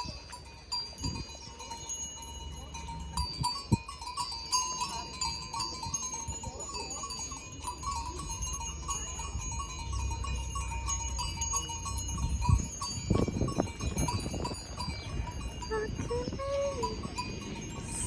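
Many cowbells clanking irregularly and overlapping as cattle move about. A short animal call rises and falls about three-quarters of the way through.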